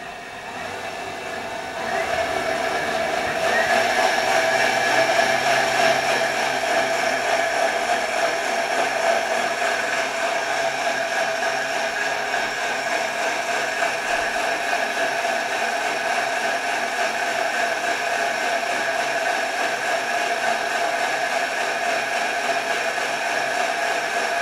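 Thermomix kitchen machine blending frozen berries, nuts, honey and water into a thick ice-cream-like mix: a steady motor whine with the churn of the blades. It gets louder about two seconds in as it comes up to high speed.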